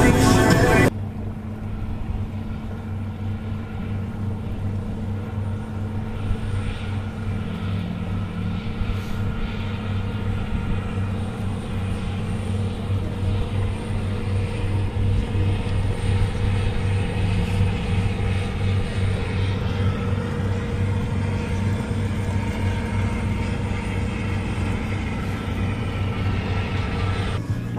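Boat engine running with a steady, unchanging low drone, over a haze of water and wind noise. Background music cuts off about a second in.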